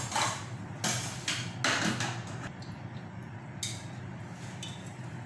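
Vegetable oil heating in a frying pan on a gas stove, sizzling with several short bursts of crackling, over a low steady hum.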